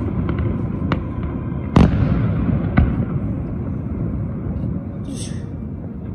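Aerial firework shells bursting in a display: a series of sharp booms, the loudest about two seconds in, over a continuous low rumble of echoing bangs. A brief high hiss comes about five seconds in.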